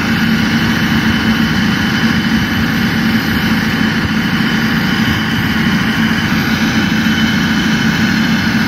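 A machine running steadily: an even drone with a low hum that does not change.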